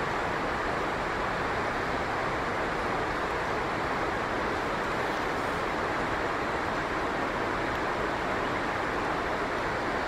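Steady, even rushing noise with no distinct events or bird calls.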